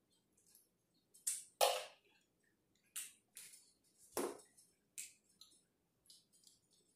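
A spoon clinking and tapping against a bowl while eating: about six short, separate clicks spread irregularly, with quiet between them.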